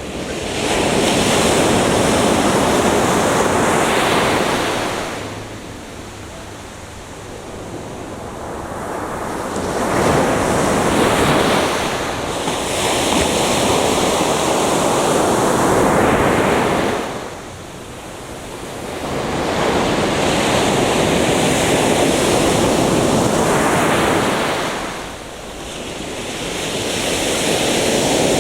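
Atlantic Ocean surf: waves breaking and washing up the beach in four long surges, each swelling for several seconds and easing into a quieter lull before the next.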